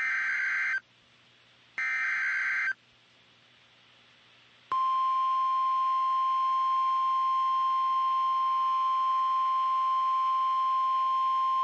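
NOAA Weather Radio emergency alert signal: two short bursts of digital SAME header data, about a second apart, then from nearly five seconds in a steady single-pitched warning alarm tone that holds. The signal opens a severe thunderstorm warning broadcast.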